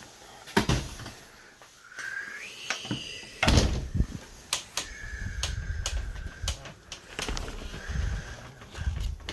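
Several sharp knocks and clunks with a high squeaking tone that rises and then holds steady, and low rumbling noise in the second half.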